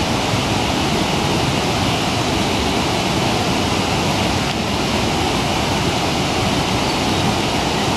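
Steady rushing of a waterfall on a rocky mountain stream, an even wash of water noise with no frog calling.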